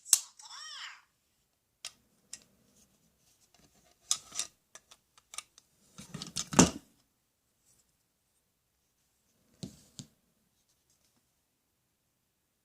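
Plastic toy tools being handled: scattered clicks and clatters, the loudest about six seconds in and another near ten seconds, with a short squeak just after the start.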